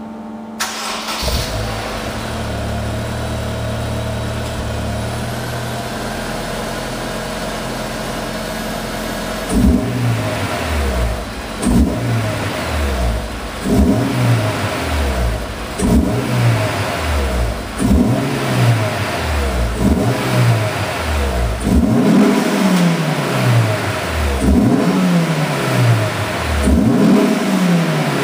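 Honda S2000 inline-four engine starting about half a second in and settling into a steady idle. From about ten seconds in it is revved in place about every two seconds, each rev rising sharply in pitch and falling back to idle.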